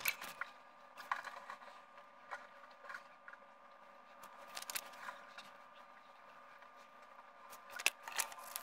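Handling noises: a paper hanging file folder and a magnetic-strip audio card being moved and slid across a wooden table, with scattered soft taps and scrapes over a faint steady hum.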